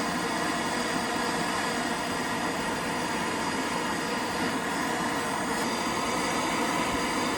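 Steady mechanical whir and hiss, even throughout.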